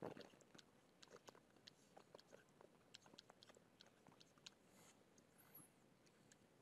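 Faint, irregular clicks and taps of a stylus writing on a tablet screen, over near-silent room tone.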